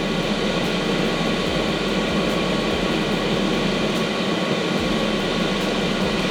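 Espar Airtonic D2L diesel air heater running, its blower and burner giving a steady, even hum.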